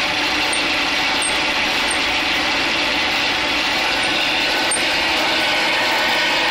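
Drill press running with a large cutter boring into a small engine's metal cylinder head: a steady grinding, hissing noise of metal being cut.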